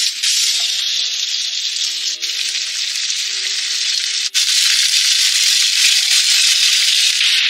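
Soy sauce, cooking wine and water sizzling as they hit the hot oil in a frying pan of pan-fried saury pieces, a steady hiss. The hiss breaks off for an instant just after four seconds, then comes back louder as a bowl of water is poured in. Faint background music plays underneath.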